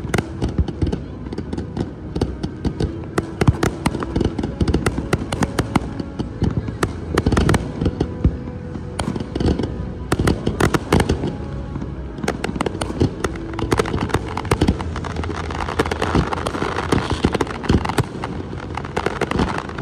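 Aerial fireworks display: shells bursting one after another in a rapid, continuous barrage of bangs, with a thicker crackle of bursting stars about sixteen seconds in.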